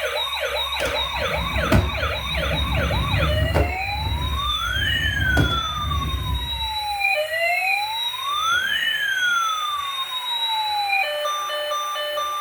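Electronic toy siren sound effect: a fast warbling yelp for about three seconds, then a slower wail that rises and falls twice, over a low rumble during the first half. Near the end it switches to a run of steady electronic beeping tones.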